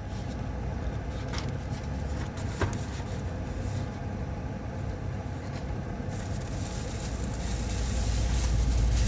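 Steady low rumble of a vehicle, growing louder over the last few seconds, with a couple of faint clicks.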